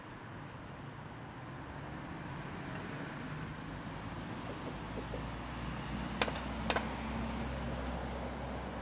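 A vehicle engine rumbling low and growing gradually louder, joined about six seconds in by a steady hum. Two sharp clicks about half a second apart come just after the hum begins.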